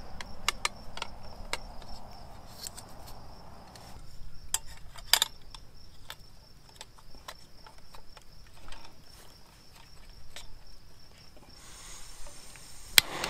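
Scattered plastic and metal clicks and clatters as a folding plastic canister stand and a screw-on backpacking gas stove are fitted onto a fuel canister, over a steady high chirring of crickets. Near the end a hiss starts as the stove's gas is turned on, followed by one sharp click.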